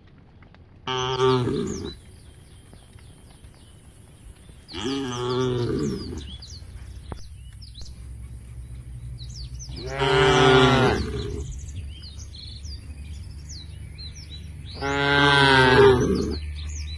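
Cattle mooing: four separate drawn-out moos, one every four to five seconds, with birds chirping faintly in the background.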